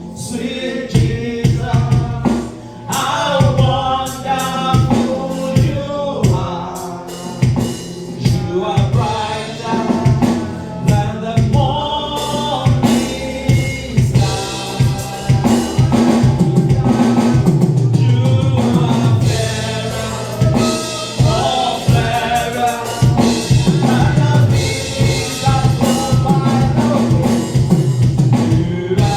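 Live gospel worship music: voices singing a worship song together over a drum kit with a steady beat.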